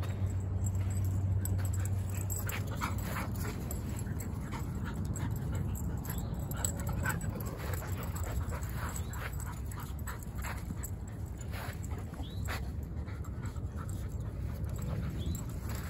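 A dog making short, repeated high-pitched whines over a steady low rumble.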